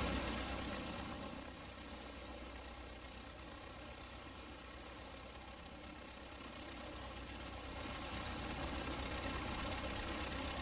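Cartoon vehicle engine sound effect running steadily. It eases down after the first second or two and builds up again near the end.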